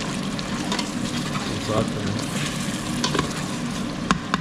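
Tomato masala sizzling in oil in the steel inner pot of an electric pressure cooker while a metal ladle stirs it, scraping against the pot, with a few sharp clinks of the ladle on the steel near the end.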